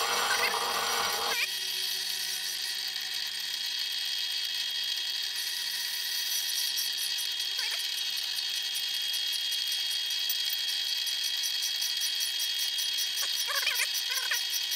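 Old South Bend lathe turning a cast-iron brake disc while a carbide-tipped tool skims its face, making a steady high-pitched cutting whine. A faint fast ticking joins high in the sound from about the middle on.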